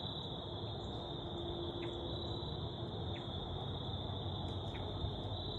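Crickets trilling in a steady, unbroken high chorus.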